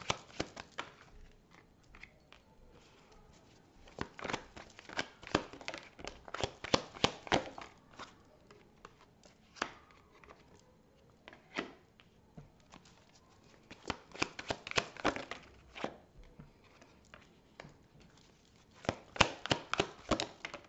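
A deck of oracle cards being shuffled by hand: several bursts of quick card snaps and flicks, with single clicks in between.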